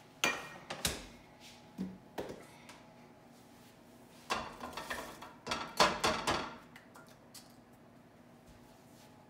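Chopped apples scraped off a cutting board into a nonstick frying pan with onions. A few light knocks come first, then about two seconds of pieces tumbling and clattering into the pan.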